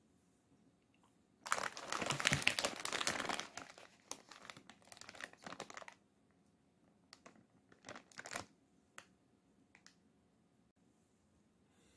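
Plastic instant-noodle packet crinkling as it is handled and turned over: a loud stretch of crinkling for about four seconds, then a few short crinkles.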